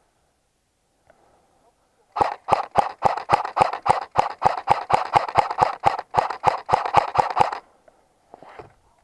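Quick, evenly spaced footfalls of a player running, about four or five steps a second, with a brief break partway through. The run starts about two seconds in and stops a little over a second before the end.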